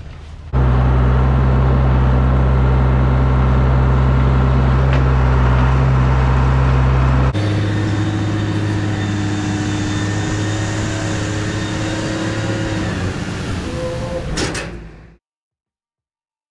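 Dump truck engine running steadily with a deep hum while the raised bed tips a load of bedding sand. The sound changes abruptly about seven seconds in and cuts off suddenly near the end.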